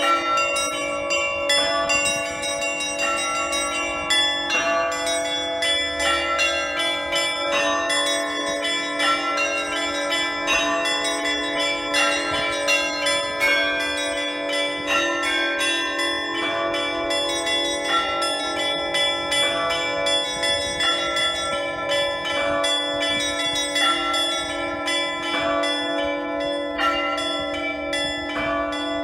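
Russian Orthodox church bells rung by a bell ringer in the Easter peal: quick, rhythmic strikes on the smaller bells over the steady ring of the larger bells.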